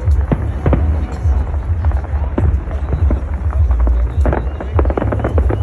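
Fireworks going off in a string of irregular bangs and crackles over a steady low rumble, with crowd voices mixed in.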